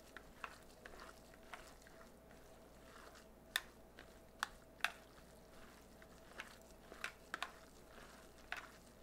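Gloved hands squeezing and mashing tofu with raw ground chicken in a glass bowl: faint wet squishing with scattered sharp clicks at irregular moments.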